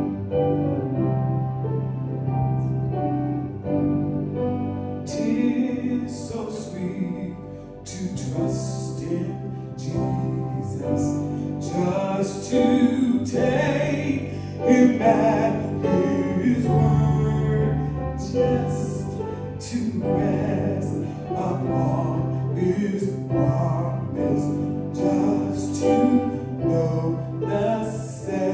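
Gospel music: keyboard chords with singing, growing fuller about five seconds in.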